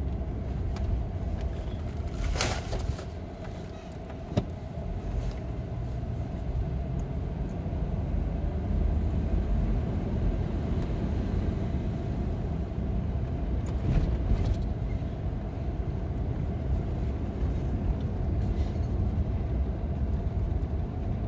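Steady road and engine rumble heard from inside a slowly moving car, with a few brief sharp clicks or knocks, the sharpest about four seconds in.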